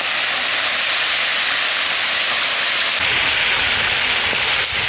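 Tilapia pieces deep-frying in a wide, shallow pan of bubbling oil: a loud, steady sizzle. A low rumble joins it about three seconds in.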